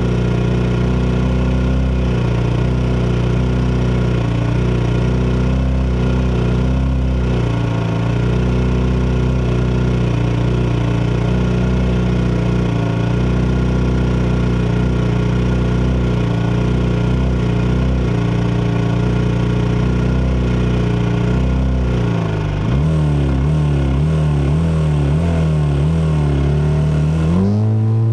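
Norton Manx single-cylinder race engine running steadily on the start grid, then blipped up and down about three-quarters of the way through, with the revs rising sharply near the end as the race starts and the bike pulls away.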